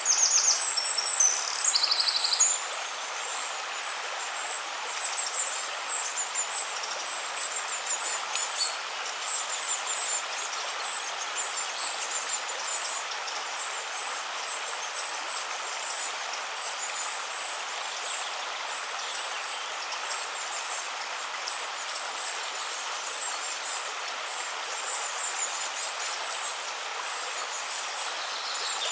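Steady rush of a flowing river, with small birds chirping and trilling high above it. The birdsong is loudest in the first couple of seconds, then comes in scattered short calls.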